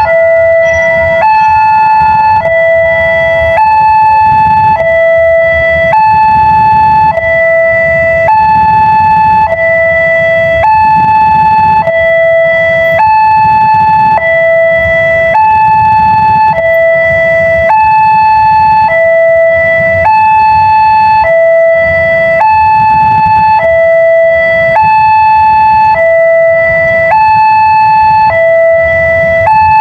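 Indonesian railway level-crossing warning siren sounding a steady two-tone hi-lo alternation, about one and a half seconds per pair of tones, over a low rumble.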